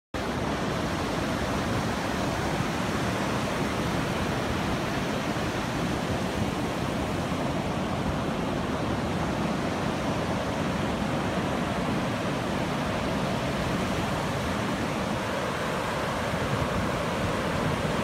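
Ocean surf breaking on a sandy beach: a steady, even rush of waves.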